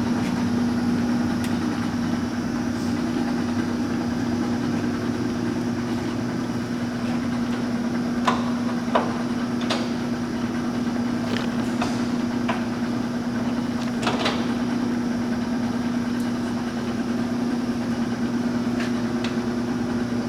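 LeBlond Regal engine lathe running under power: a steady mechanical hum from the motor and headstock gearing, with a handful of light clicks scattered through the middle.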